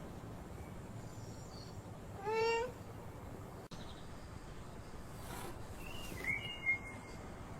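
An animal gives one short, rising, meow-like cry about two seconds in, then a few faint high chirps near the end, over a steady low hum.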